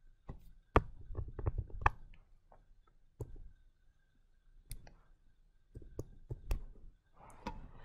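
Light clicks and taps of a stylus on a tablet screen as line strokes are drawn, coming in irregular clusters with short quiet gaps between them.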